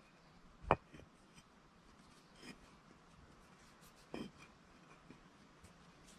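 Clay bricks being handled and set down on sandy ground: a sharp knock under a second in, a shorter, softer knock a little after four seconds, with faint scraping and rubbing of brick on sand between.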